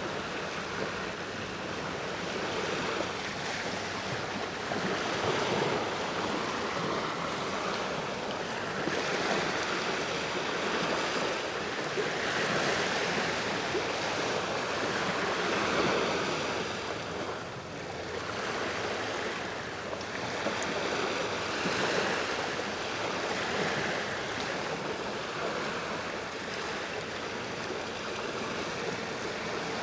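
Sea waves breaking and washing up the shore, the surge swelling and easing again every few seconds.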